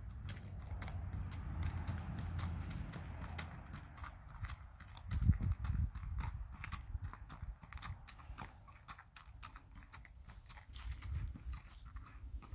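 A horse walking on a gravel driveway, its hooves clopping and crunching in an uneven series of sharp strikes. A louder low thump comes about five seconds in.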